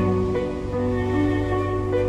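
Soft background music: sustained low chords with a few gentle plucked notes.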